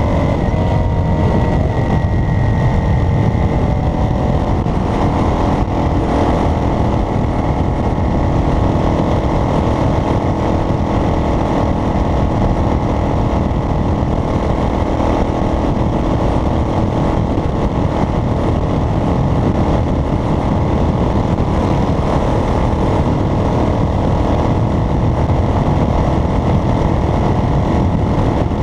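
A motor vehicle's engine running with road noise while driving: a steady, loud rumble. In the first couple of seconds the engine's pitch slides down, then it holds steady.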